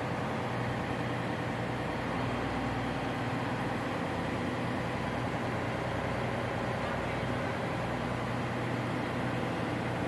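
Steady machinery noise in a ship's engine room: a constant low hum under an even rushing noise, with no change in level.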